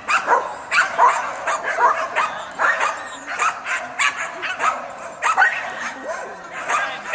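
Norwegian Buhund barking in quick, yappy barks, about three a second without a break, the way it drives the sheep.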